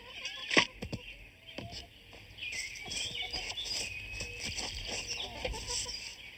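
Small birds chirping over outdoor ambience, with a sharp knock about half a second in and scattered lighter knocks.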